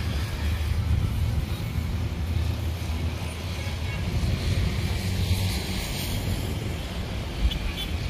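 Road traffic noise: a steady low rumble of passing vehicles.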